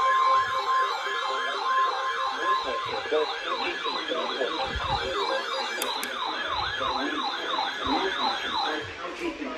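Electronic siren in a fast yelp, its pitch sweeping up and down about three or four times a second, with a steady high tone under it for the first three seconds; the siren stops near the end.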